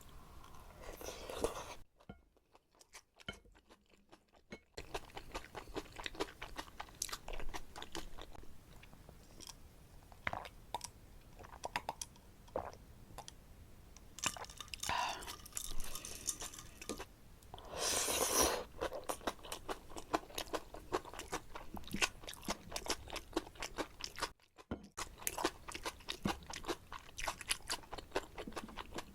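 Close-miked eating of jjajangmyeon noodles in black bean sauce: dense wet chewing clicks, with drawn-out slurps of noodles near the start and about two-thirds of the way through, broken by two brief silent gaps.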